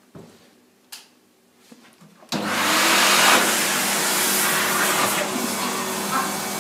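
Upright vacuum cleaner switched on about two seconds in, starting suddenly and then running steadily. Two short knocks come before it starts.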